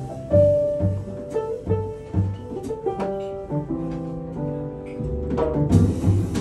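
Live jazz played on upright piano and double bass, the piano playing single notes and short chords over walking bass notes. Near the end the band comes in fuller and louder.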